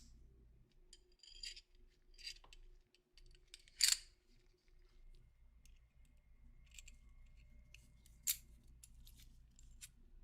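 Small metal parts of a Colt M1911 pistol clicking and scraping as they are handled and fitted back together, in scattered short clicks with two sharper ones about four and eight seconds in.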